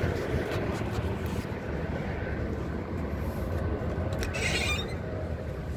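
Steady low rumble of a running vehicle, with a short hiss about four seconds in.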